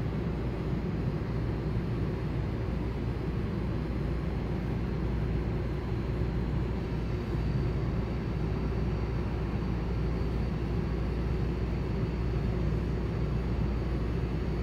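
A steady low mechanical rumble with a faint high whine above it, even throughout with no distinct events.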